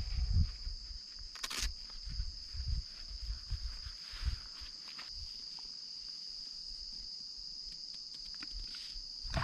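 Chorus of night insects trilling steadily at a high pitch, with scattered low thumps and knocks in the first few seconds and one sharp click.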